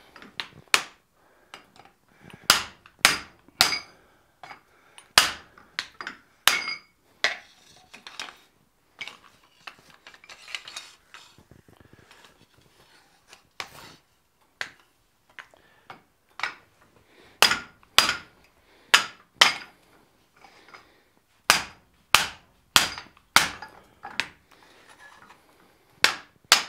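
Rawhide mallet striking red-hot 3/16-inch sheet steel on an anvil and over a hot cut hardy, spreading open a fold. Sharp blows come in quick runs of several strikes, with a softer stretch of fewer, lighter hits in the middle.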